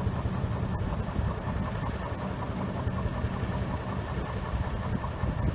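Diesel shunting locomotive's engine idling steadily with a deep, even rumble.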